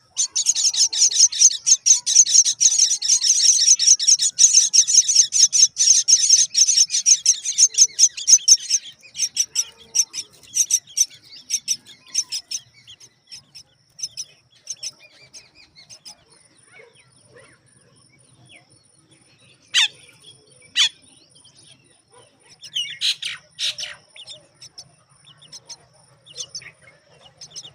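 Common myna nestlings begging with rapid, shrill chirps for about the first nine seconds, then thinning to scattered chirps, with two sharp calls about 20 seconds in and a quick cluster a few seconds later.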